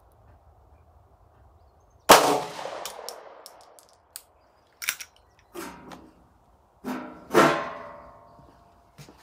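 A single 9mm pistol shot about two seconds in, the loudest sound, followed by a few light metallic clicks. Near the end come two metallic clangs that ring on briefly. The shot fires a reloaded aluminum case on its sixteenth loading, the firing at which that case split at the neck and down the body.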